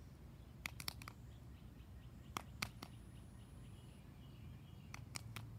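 Short sharp clicks in three quick groups of three or four, the groups about a second and a half apart, over a faint steady background hiss.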